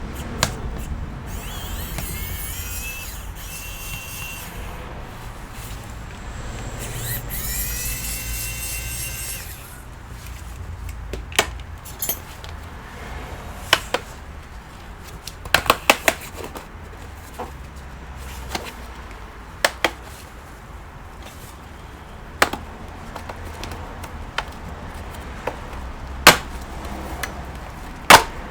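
Small electric screwdriver whirring in two short runs, its pitch rising as it spins up, then a series of sharp plastic clicks and snaps as the laptop's case is worked open.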